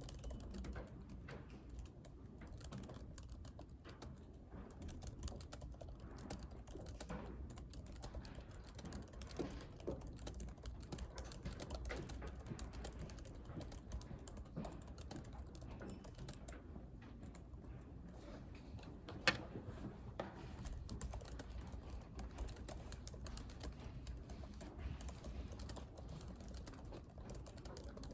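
Typing on a computer keyboard: a continuous, irregular patter of key clicks, with one louder click about two-thirds of the way through, over a low steady hum of room noise.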